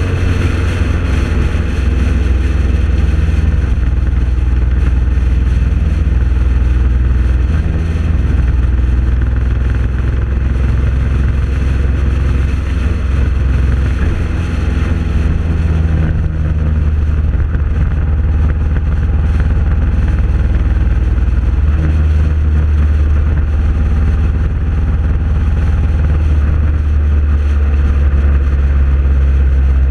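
Steady engine drone and wind and road noise of a vehicle cruising at highway speed, heard from on board. The drone shifts slightly in level a few times.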